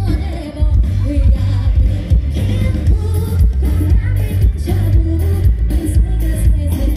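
Live band playing loud amplified music through a PA, with a heavy bass line and a steady drum beat, while a woman sings into a microphone.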